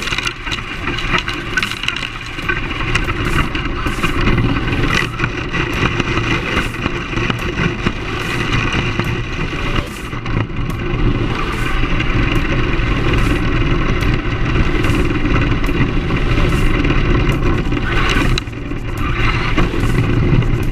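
Brushless electric motor and drivetrain of a Team Associated SC10 short course RC truck whining steadily as it drives, over a dense rumble of tyres on gravel and pavement, picked up by a camera mounted on the truck.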